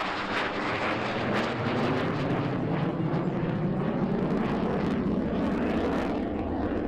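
Turkish Air Force F-16C fighter jet passing overhead in a hard turn, its engine noise loud and steady. It crackles at first, then deepens to a lower rumble about halfway through.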